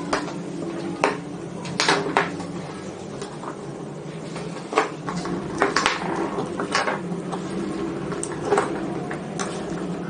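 Irregular clicks and sharp metallic taps of small tools and metal parts being handled during a bearing replacement in an opened electric rotary grinder, over a steady low hum.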